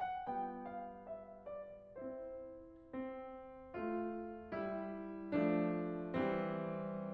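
Background piano music: a short run of notes, then chords struck about once a second, each one fading away. The chords grow louder near the end.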